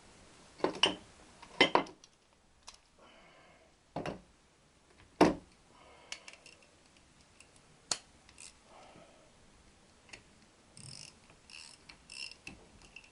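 Scattered sharp metallic clicks and clinks as nuts are threaded by hand onto the connecting-rod big-end bolts of a Triumph T120 crankshaft. The loudest knock comes about five seconds in, and a quick run of small clicks comes near the end.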